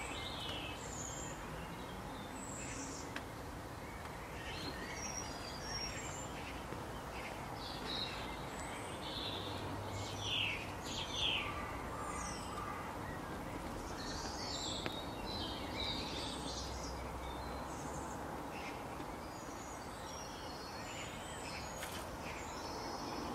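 Woodland birdsong: many small birds chirping and calling in short, scattered notes over a steady background hiss, with a few louder calls about ten seconds in.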